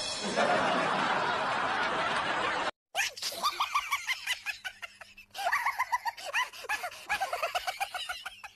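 A steady rush of noise for about two and a half seconds, then, after a short cut, bursts of high-pitched laughter in quick ha-ha pulses that run to the end.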